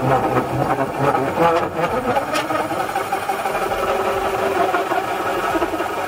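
WORX cordless drill running steadily under load, driving a hole saw through the wooden cabinet wall to cut a round vent hole.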